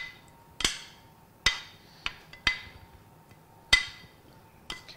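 A metal fork knocking and clinking against a nonstick frying pan, about six sharp strikes roughly a second apart, each leaving a brief metallic ring.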